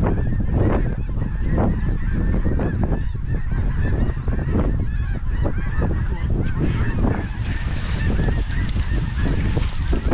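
A large flock of snow geese calling continuously, many overlapping high honks blending into a steady din.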